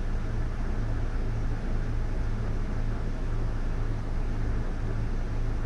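Air conditioner running steadily: an even rushing of air over a low, constant motor hum.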